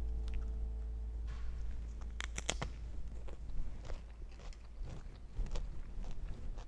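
A crisp chip topped with salsa bitten into: a few loud, sharp crunches about two seconds in, followed by chewing with softer, scattered crunches.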